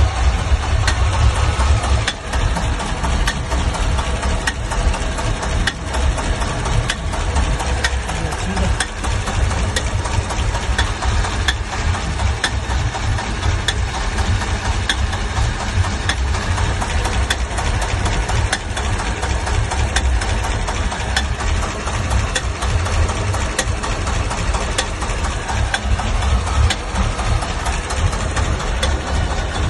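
Engine idling steadily with a repeated knock sounding through it, which the owner posts as an engine knock.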